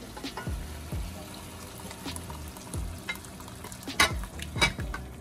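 A spoon stirring thick cream sauce in a pot on medium heat, with two sharp clanks against the pot near the end.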